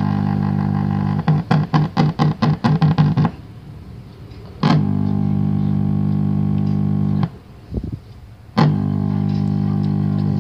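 CRT television with a Chinese Wcom chassis giving a loud buzzing hum, the fault it was brought in for, with its supply current and voltage dropping. About a second in the buzz stutters in rapid pulses for two seconds. It then cuts out twice and comes back each time with a click.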